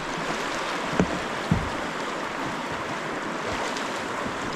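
River current rushing steadily around a whitewater kayak as it is paddled out across the flow, with two short knocks about a second in.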